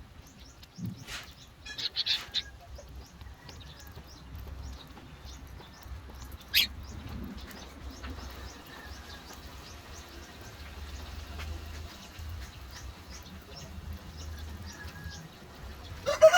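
Birds giving scattered faint chirps and clucks, with small clicks and one sharp high call about six seconds in, over a low steady rumble. A rooster starts crowing at the very end.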